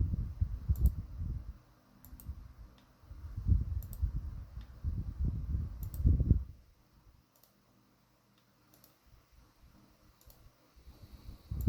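Faint single clicks, about one every second or so, over low rumbling handling noise during the first six seconds.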